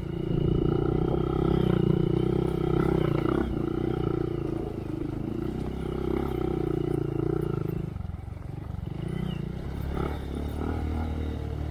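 2023 Honda Monkey's single-cylinder four-stroke engine running through a Yoshimura RS3 slip-on exhaust with spark arrestor, held on steady throttle while riding. About eight seconds in the throttle eases off briefly, then picks up again.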